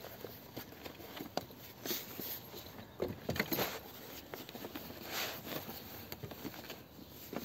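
Rustling, scraping and light knocks of a coiled rope being picked up and handled on a boat's deck, loudest about three seconds in.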